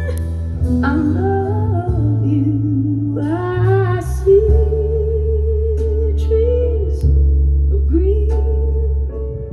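Recorded music played back over Panasonic SB-AK85 hi-fi speakers, bi-wired to a Sansui AU-X117 amplifier: a song with a sung melody over a steady bass line and guitar.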